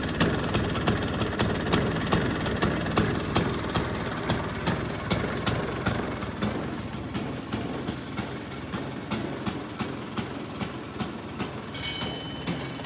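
1974 Vespa Super 150's single-cylinder two-stroke engine running at idle, with a regular sharp tick about three times a second over the rumble. A brief higher-pitched sound comes in near the end.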